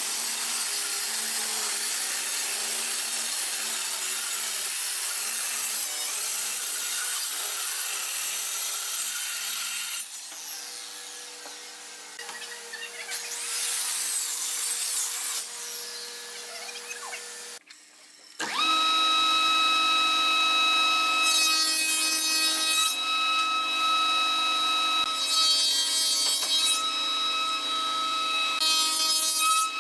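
Handheld circular saw ripping along a wooden board. About two-thirds through, a spindle moulder with a power feeder starts with a steady high whine. Three times a brief harsher cutting noise joins it as a board passes the cutter.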